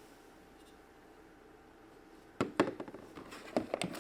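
Near silence, then a few sharp clicks and knocks of small toy pieces being handled and set down, starting about halfway through.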